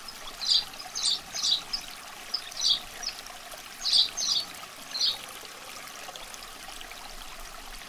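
Water trickling and dripping: a run of short, irregular small splashes over a steady hiss, which stop about five seconds in and leave only the hiss.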